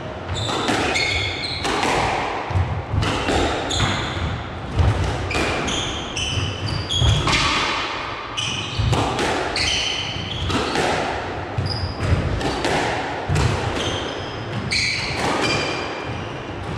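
Squash rally: the ball is struck sharply and smacks off the court walls in a rapid series of hits, with short high squeaks of shoes on the court floor between them.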